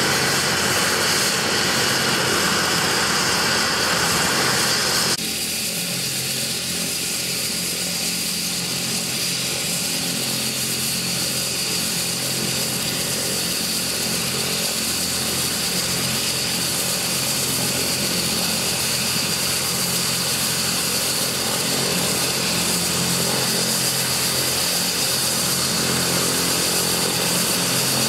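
Kazan Ansat helicopter's twin PW207K turboshaft engines running on the ground with the main rotor turning: a steady high turbine whine over the rotor and engine noise. About five seconds in, the sound changes abruptly and drops slightly in level, then holds steady.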